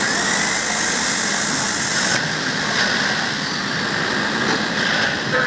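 Steady machinery noise of a factory workshop: an even mechanical drone with a faint high whine running through it.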